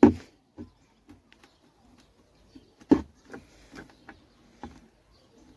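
Hands working an upturned plastic bucket, pushing short pieces of plastic hose into drainage holes in its bottom: a few scattered clicks and knocks, the loudest near the start and about three seconds in, with lighter ones after.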